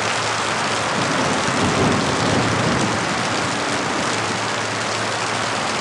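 Rain pouring down steadily in a dense, even downpour.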